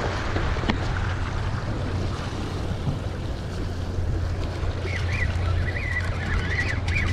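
Wind buffeting the microphone over small waves washing against shoreline rocks, a steady low rumble with a wash of surf noise. From about five seconds in, a faint wavering high-pitched whine joins it.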